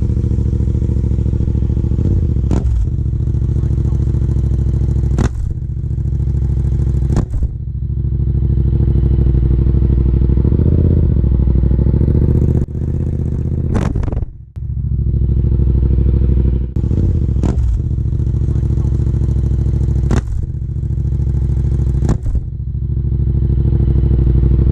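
A 2016 Yamaha MT-07's parallel-twin engine running at low revs through an Akrapovic exhaust, with a deep steady exhaust note. Brief sharp clicks break in every few seconds.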